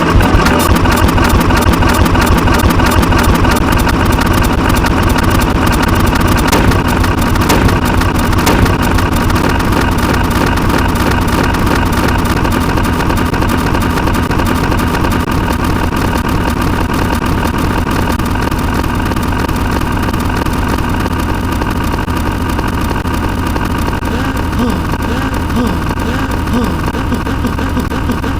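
A loud, dense wall of many sound effects layered and playing at once. It is steady, with no pauses, and slowly gets a little quieter.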